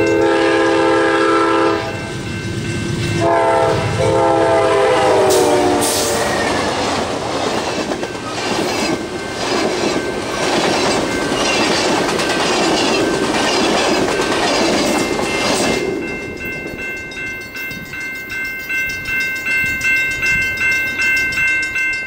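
Amtrak Southwest Chief's lead GE P42DC diesel locomotive sounding its horn in two long blasts, the second dropping in pitch as the locomotive passes. Then the double-deck passenger cars roll by with a rhythmic wheel clatter over the rail joints for about ten seconds. Grade crossing bells ring throughout and carry on alone after the train has gone.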